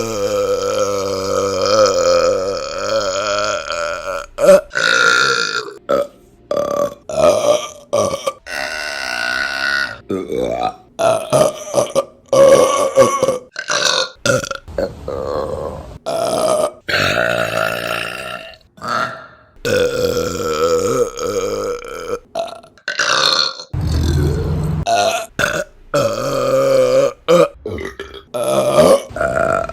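Women burping loudly, one after another: a long run of separate belches, some drawn out and sustained in pitch, with abrupt cuts from one burp to the next.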